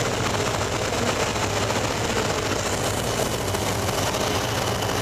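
1940 Waco biplane's engine and propeller running steadily in cruising flight, with a rush of wind over the open cockpit.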